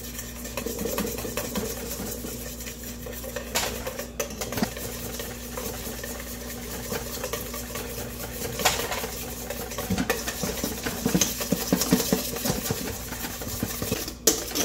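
Wire whisk beating hollandaise in a stainless steel bowl over a double boiler, its wires rapidly clicking and scraping against the metal as the melted butter is whisked into the thickening egg yolks, with a few sharper clinks.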